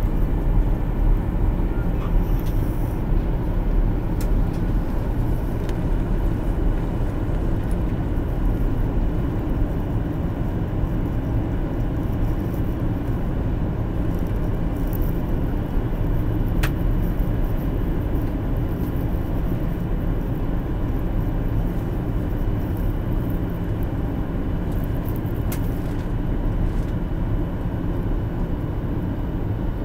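Steady cabin noise of a passenger jet in flight, heard from inside the cabin: a low, even rumble of engines and rushing air with a faint steady whine above it.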